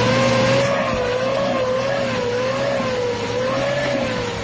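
Nissan Urvan's TD27 2.7-litre four-cylinder diesel engine held at high revs, running loud and steady with its pitch wavering slightly up and down in slow swells.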